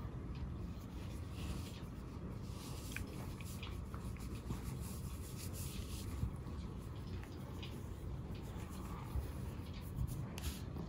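Fingers scratching through a tabby cat's fur, giving soft, irregular rubbing and rustling over a steady low rumble.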